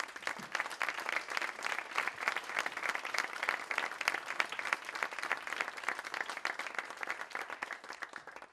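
Audience applauding steadily in a hall, welcoming a guest singer onto the stage; the clapping dies away near the end.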